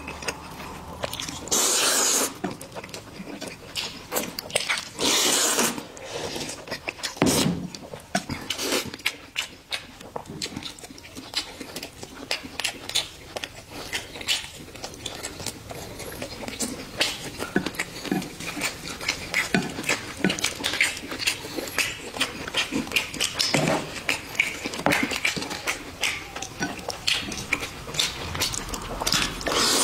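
Close-up eating sounds: two loud noodle slurps, about two and five seconds in, then steady wet chewing and lip-smacking clicks.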